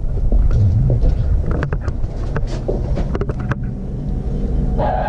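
Low rumble of wind and handling on the microphone with a few footstep clicks. About a second after the doorbell button is pressed, near the end, a doorbell chime begins to ring.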